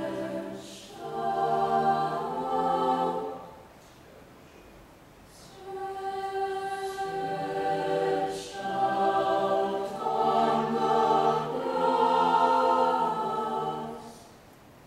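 Mixed-voice high school chamber choir singing sustained chords in phrases. There is a short break about four seconds in, and the last chord fades out about fourteen seconds in.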